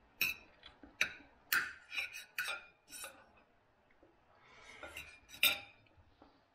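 Knife and fork clinking and scraping against a plate while cutting food: a quick run of sharp clinks over the first three seconds, then one more clink about five and a half seconds in.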